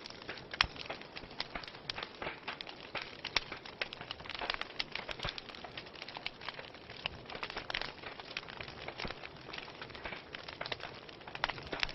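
Fire burning in a fireplace, crackling steadily with irregular sharp pops and snaps, several a second, over a soft hiss.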